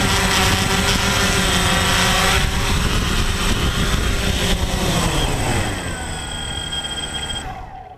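DJI Phantom quadcopter's motors and propellers running with a steady buzz as it sets down, then spinning down with a falling pitch and fading out after touchdown.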